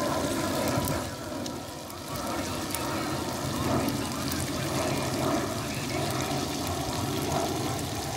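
Steady low rumble and hiss, with the faint bubbling of curry simmering in a pot over a wood fire.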